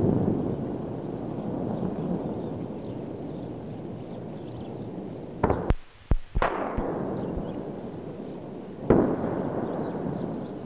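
Explosions: a continuous fading rumble, with a cluster of sharp bangs about five and a half seconds in and another heavy blast near nine seconds, each trailing off into a long rumble.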